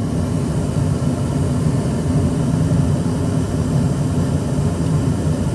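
ICP gas furnace running with its burners lit: a steady low rumble that grows a little louder a little over a second in.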